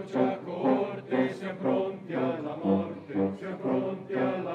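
A choir singing a slow chant-like song in evenly paced notes, about two a second.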